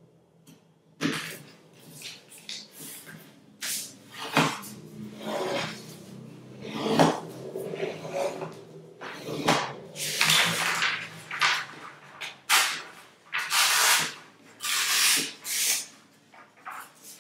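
Large sheets of paper being handled and folded on a tabletop: rustling, sliding and crisp creasing strokes in irregular bursts, starting about a second in.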